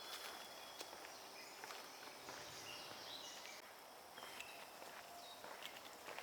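Faint woodland ambience: footsteps of a person walking, with scattered brief high bird chirps.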